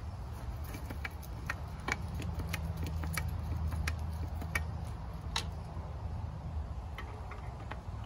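Grease gun pumping grease into a sickle bar mower's grease fittings. A low hum grows stronger through the middle, with irregular sharp clicks of metal on metal over it.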